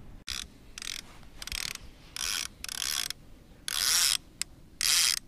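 Fishing reel being cranked in short bursts, about eight spurts of whirring and clicking from the gears with brief pauses between them.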